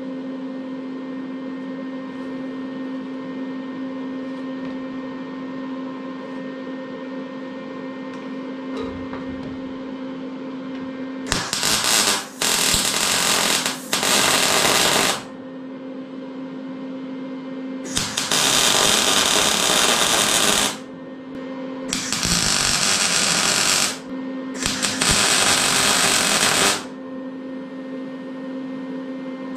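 Arc welding on the clamped metal dash frame: six short weld runs, each one to three seconds of loud, hissing noise, in two groups of three starting about eleven seconds in. A steady hum with a low tone sounds between and before them.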